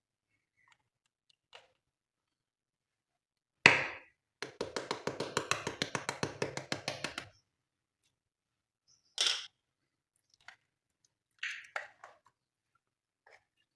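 Hands working crunchy slime with makeup mixed in. There is one sharp crack, then a run of quick crackling clicks, about seven or eight a second, lasting about three seconds, then a few more separate cracks and taps.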